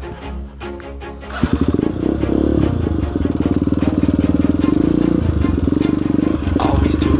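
Short burst of intro music, then about a second and a half in a single-cylinder four-stroke trail motorcycle engine running under throttle, with a brief dip about five seconds in.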